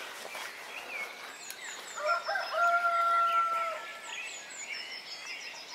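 A rooster crowing once, about two seconds in, one long call lasting nearly two seconds, over small birds chirping throughout.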